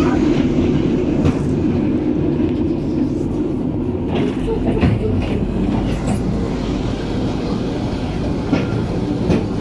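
Narrow-gauge park railway carriage running along the track, heard from inside the open-sided car: a steady rumble of wheels on rails with a few uneven clicks as the wheels pass over rail joints.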